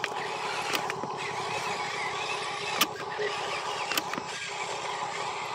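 Electric motor and gearbox of a Huina RC dump truck whining steadily as it drives loaded over dirt, with a few sharp clicks, the loudest about three seconds in.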